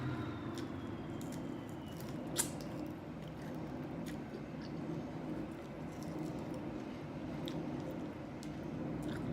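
Wet chewing and mouth sounds of someone eating sauce-covered chicken wings, with small irregular clicks and one sharper click about two seconds in, over a steady low background hum.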